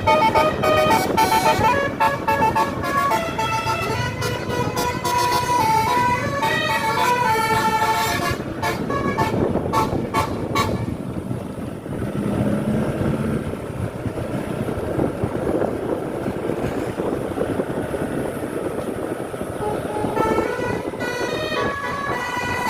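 Tour bus's basuri 'telolet' horn, a multi-tone air horn, playing a tune of quickly changing notes for about the first eight seconds. It stops, leaving the bus's engine and road rumble, and starts playing again near the end.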